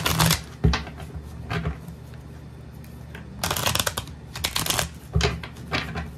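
A deck of oracle cards being riffle-shuffled by hand: several bursts of fluttering card riffles, the longest from about three and a half to five seconds in, with a couple of low knocks.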